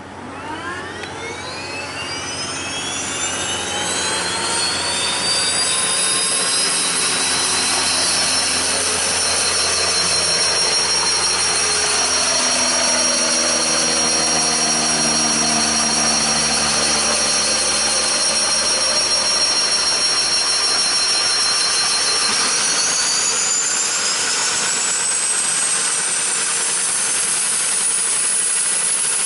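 Pilatus PC-12/47E's Pratt & Whitney PT6A-67P turboprop starting: a turbine whine climbs steeply in pitch and loudness over the first several seconds, then settles into a steady idle. About three quarters of the way through, the whine rises in pitch again.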